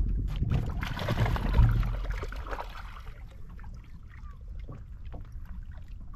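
Fishing boat on the water: a steady low rumble with wind and water noise. The noise swells about a second in and eases off after three seconds.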